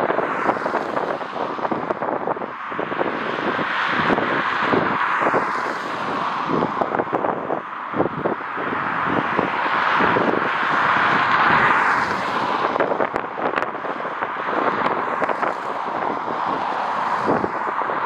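Strong gusty wind buffeting the microphone: a loud rushing noise with rumbling thumps, swelling and easing with the gusts.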